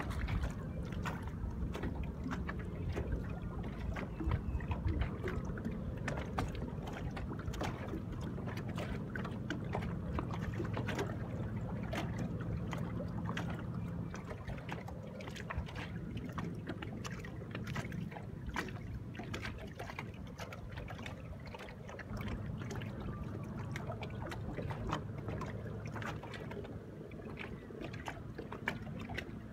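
Small waves lapping and slapping irregularly against the hull of a boat sitting on calm water. A low, steady hum runs underneath.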